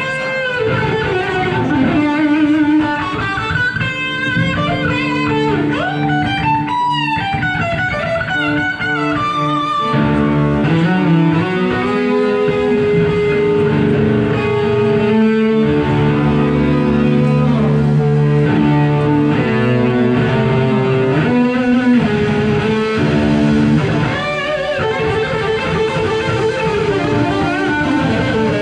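A rock band playing live, electric guitars leading over bass and drums.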